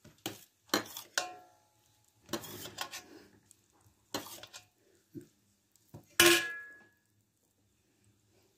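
Metal kitchenware knocking and clinking: a series of sharp clinks with short ringing, a scraping rustle a couple of seconds in, and the loudest clang about six seconds in, ringing out for most of a second.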